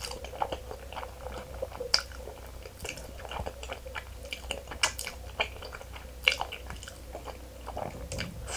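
Close-miked mukbang eating of thick, cheese-coated spicy instant noodles: slurping and wet chewing with irregular sharp mouth clicks and smacks, the loudest about two, five and six seconds in.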